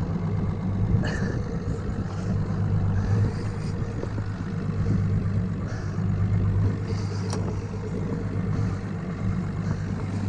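Boat engine idling steadily with a low hum, with a couple of faint clicks about a second in and again near the seven-second mark.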